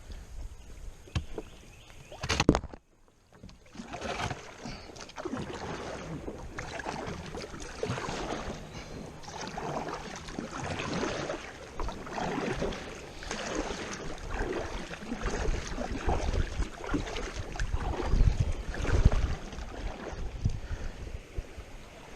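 Water splashing and trickling around a kayak on a river. The sound drops out briefly about three seconds in.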